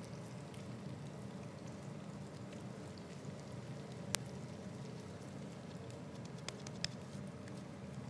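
Minced-meat patties frying in oil in a pan, a faint steady sizzle, with a few sharp ticks, one about halfway through and two more shortly after.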